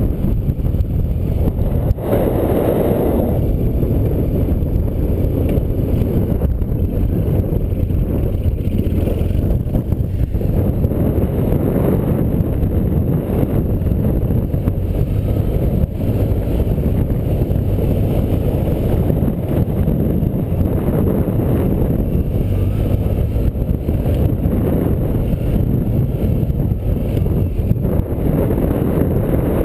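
Motorcycle engine running steadily as it is ridden over rough dirt tracks, mixed with wind rumbling on the camera microphone.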